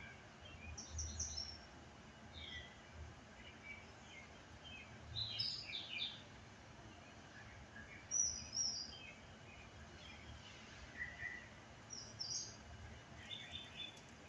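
Wild birds chirping and calling in short, scattered phrases, with several different high calls overlapping, over faint low background noise.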